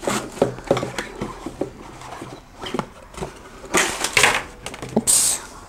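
Handling noise as a plastic gaming headset is lifted out of its cardboard packaging insert: a run of small clicks and knocks, then a few louder rustles of the packaging about four and five seconds in.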